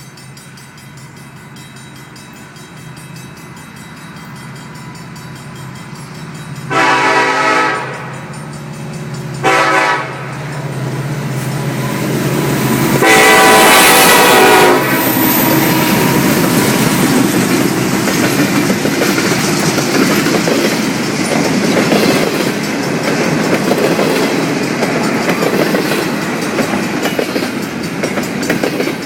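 Approaching CN freight locomotive sounding its multi-chime horn three times, long, short, then a longer and loudest blast, over a building diesel rumble. The intermodal train then passes close by with a steady clatter of wheels on the rails.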